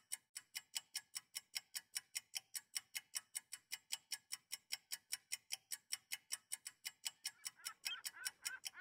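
Even, rapid clock-like ticking, about five sharp ticks a second. Near the end, faint bird calls begin over the ticking.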